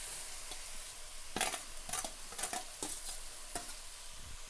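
Spiced onion masala sizzling in a frying pan as boiled cabbage is stirred in, a spoon scraping and clicking against the pan about five times.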